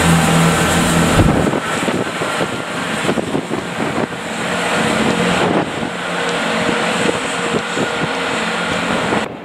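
GWR Networker Turbo diesel multiple unit passing close: a low diesel engine drone at first, then a loud rush of noise with rapid clatter of wheels over rail joints.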